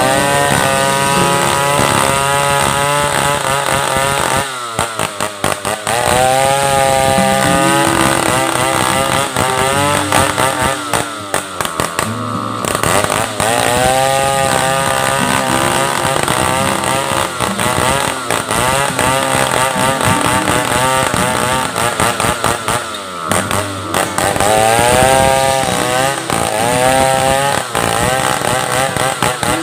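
Stihl 070 two-stroke chainsaw cutting into a large log, its engine pitch rising and falling again and again as it works in the cut.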